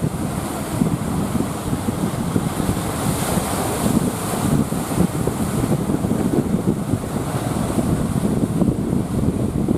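Strong wind buffeting the microphone over the rush of surf.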